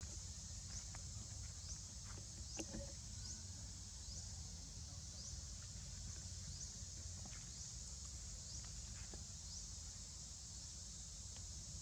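Outdoor forest ambience: a steady high insect drone with a short rising chirp repeating about every three quarters of a second, over a low rumble and a few faint clicks.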